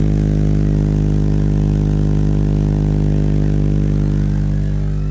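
Loud, steady sustained bass tone played through a DJ sound system's eight bass speaker cabinets during a sound check. It holds one deep pitch throughout, and its upper overtones thin out near the end.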